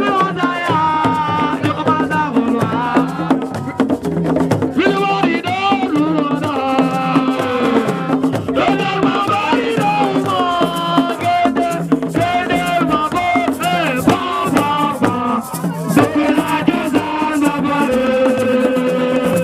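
Music: a wavering melody over a steady low held note, with a shaken rattle keeping the rhythm.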